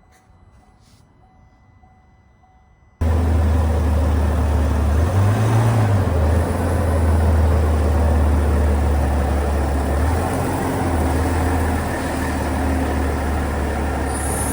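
LM2 3.0 L Duramax inline-six turbo-diesel idling after work on its fuel system. The engine cuts in abruptly after about three seconds of quiet and rises briefly in pitch a couple of seconds later before settling back to a steady idle.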